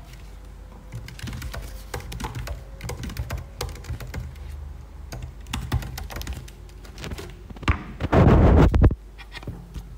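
Scattered clicks and taps of laptop keys and of a phone being handled, with a loud rubbing noise lasting under a second near the end.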